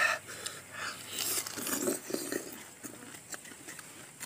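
People chewing crisp star fruit, with mouth sounds and a few short clicks. A light clink of a steel bowl comes near the end as a slice is dipped into it.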